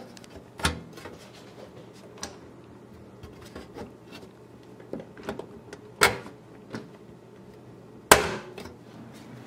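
Hand pop-rivet gun setting rivets in a steel computer case: a few sharp snaps as the rivet mandrels break off, about half a second in, about six seconds in, and the loudest about eight seconds in, which rings briefly. Between them come light clicks and knocks of handling the metal panel.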